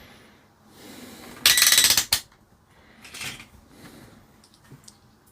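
Small hard plastic and metal parts being handled at a workbench: a brief loud scraping rattle about one and a half seconds in, a fainter one near three seconds, and light ticks between.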